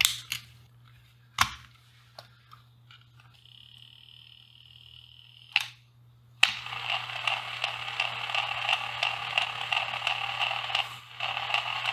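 A few clicks as batteries are seated in a 1960 AIWA TP-31 portable rim-drive reel-to-reel tape recorder. About six seconds in, a click as its control lever is pressed, then the recorder starts running with no tape loaded, a steady running noise that goes on to the end, showing that the rebuilt battery connections now deliver power.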